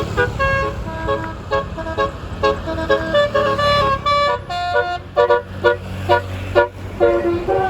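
Roof-mounted 12-note telolet air horn playing a fast melody of short notes, often two or more sounding together, with a held note near the end; an engine rumbles low underneath.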